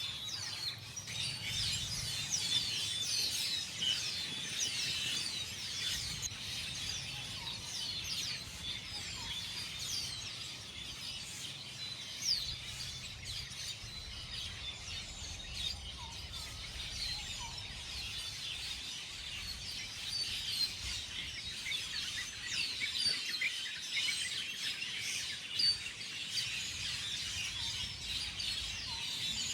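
A flock of small birds chirping continuously, many short high falling chirps overlapping, as they feed in a fruiting tree.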